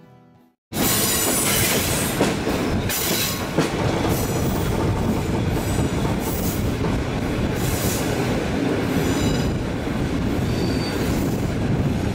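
A moving passenger train heard from a window of one of its coaches: steady rolling wheel-and-rail noise that cuts in suddenly under a second in, with a few sharp clacks and brief high wheel squeals near the end.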